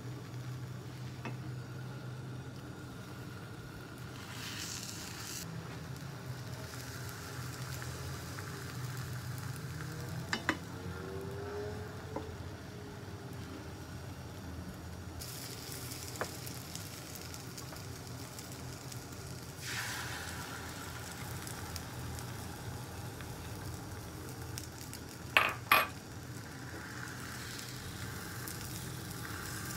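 Beaten egg sizzling in a rectangular tamagoyaki pan as a silicone spatula scrapes and turns the rolled omelette. There are scattered light clicks, two sharp knocks against the pan a few seconds before the end that are the loudest sounds, and a steady low hum underneath.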